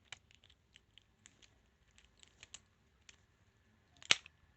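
Lock picks working inside a padlock, a string of small sharp clicks and scrapes, then one loud click about four seconds in as the lock gives and the shackle opens.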